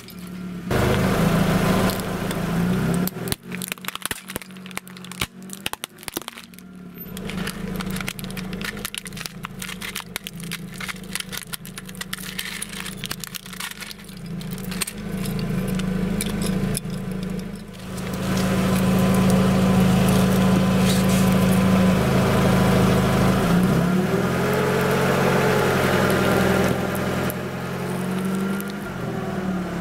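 Car engine idling steadily. Over it, in the first half, come many sharp clicks and cracks of broken plastic toy pieces. Near the end the engine note bends up and down as the car moves onto the next object.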